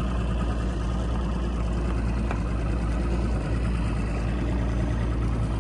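A fishing boat's outboard motor running steadily under way: a low, even hum with a steady rush of noise over it.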